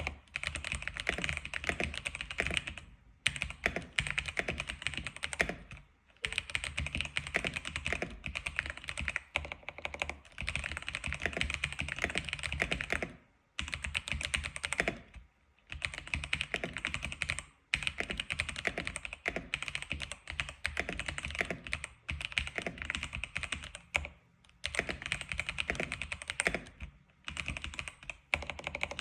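Rapid typing on an X87 keyboard, the keystrokes clicking in quick runs of a few seconds with short pauses between them.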